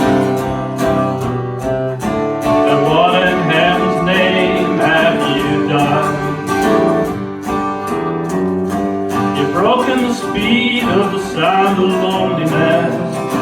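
Acoustic guitar strummed steadily under a sliding, wavering melody line, most likely a singing voice.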